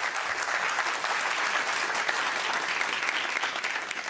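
A seated audience applauding, many hands clapping at once; the clapping begins to die down near the end.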